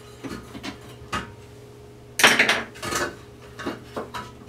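Recessed toilet paper holder and its backplate clinking and rattling against each other as they are handled and fitted into a hole in the wall: scattered light clicks, then a louder burst of clattering about two seconds in, followed by a few more knocks.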